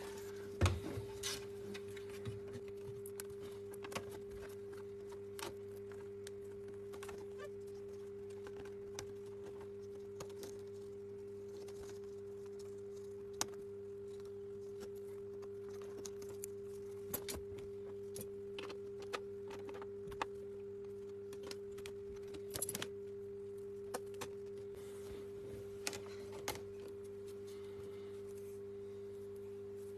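Scattered light clicks and taps of small laptop parts being handled as the camera and screen ribbon cables are fitted back into the lid, over a steady low electrical hum.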